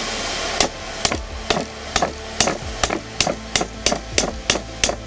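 Hand hammer striking hot steel on an anvil in a steady rhythm of about three blows a second, starting about half a second in, each blow ringing briefly.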